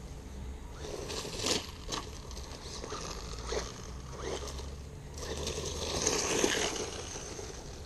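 Small electric RC truck with a brushed motor driving over dry dirt and leaf litter: tyres crunching and scraping, with two sharp knocks about one and a half and two seconds in, and loudest about six seconds in.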